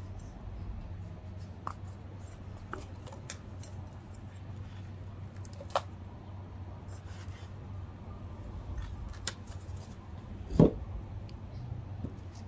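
A paper cup and small trowel scraping and scooping decayed alfalfa soil in a plastic bucket: scattered scrapes and light clicks, with one louder knock near the end.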